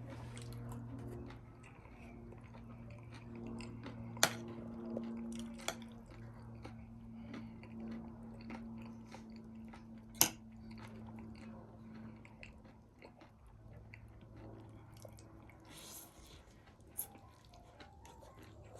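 A person chewing and crunching food close to the microphone, with irregular small crackles and a few sharper clicks, over a steady low hum.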